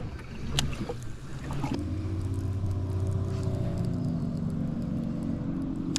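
A boat motor running, a steady hum that comes in about two seconds in with a slowly drifting pitch. A few light clicks come just before it.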